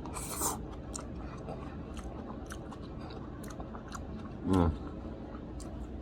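A person chewing and eating with small wet mouth clicks. A short noisy crunch or scrape comes just after the start, and a brief hummed "mm" about four and a half seconds in.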